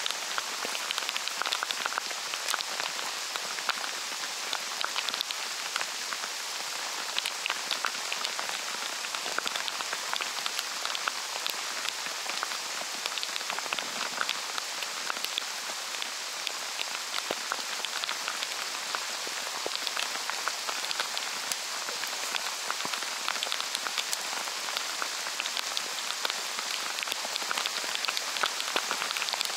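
Heavy rain pouring onto a lake's surface: a steady hiss thick with the ticks of individual drops striking close by.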